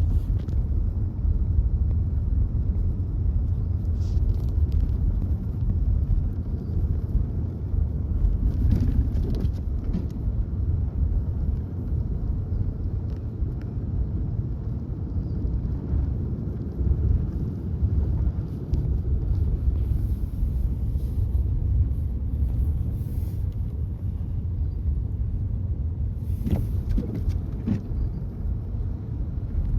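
Car being driven: a steady low rumble of engine and road noise, with a few faint clicks.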